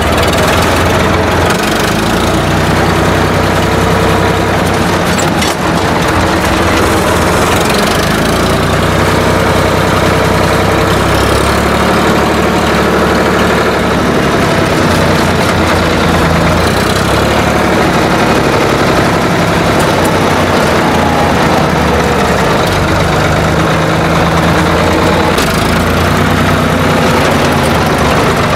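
Old tractor engine running steadily while driving, heard from inside the cab, its pitch shifting slightly now and then.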